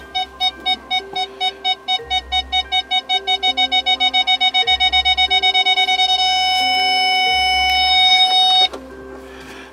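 Ford F-150 rear park aid warning beeping, the beeps speeding up from about two to six a second and merging into one continuous tone that cuts off suddenly near the end. This is the sign of an obstacle getting closer behind the truck, and of the park aid working again with its replaced rear sensor. Background music with a steady beat plays under it.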